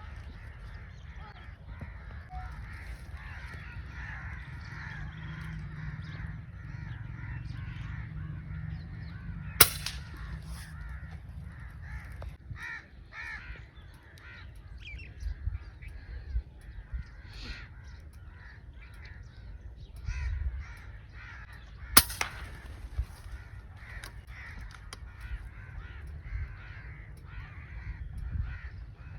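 Two sharp shots from an FX Crown PCP air rifle, the first about ten seconds in and the second about twelve seconds later, over steady calling of birds.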